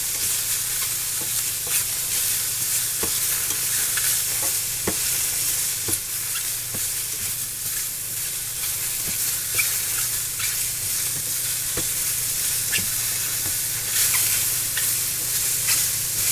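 Green beans and mushrooms sizzling steadily in a frying pan, with a little water cooking off among them. A utensil stirring the food clicks and scrapes against the pan now and then.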